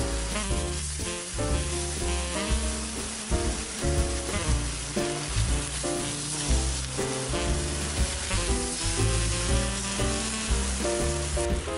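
Salmon fillets sizzling in a nonstick frying pan over high heat, with background music carrying a steady bass line and melody.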